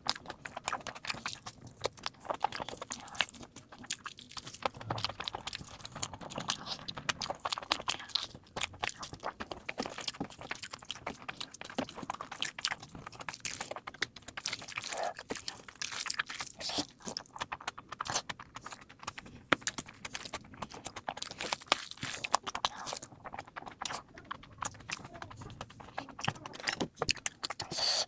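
Close-miked eating sounds sped up to double speed: quick, continuous chewing with many short crunches and clicks.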